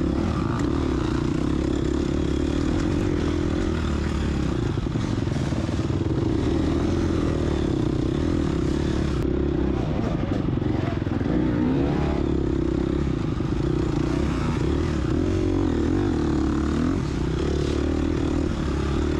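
2022 GasGas EX250F single-cylinder four-stroke dirt-bike engine running continuously on a trail ride, its pitch wavering up and down with the throttle.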